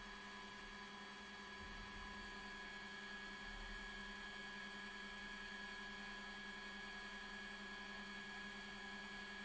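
Faint, steady electrical hum with several higher steady whining tones from a home-built hot-air soldering station running while its gun heats up.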